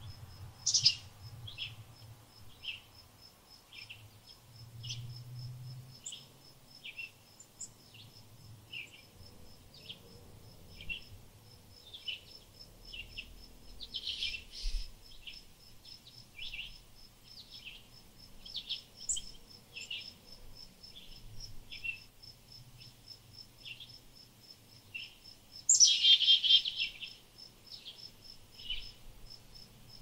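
Small songbirds chirping in short notes about once a second over a steady, evenly pulsed high-pitched insect trill, with three louder, busier bursts of bird sound about a second in, near the middle, and a few seconds before the end.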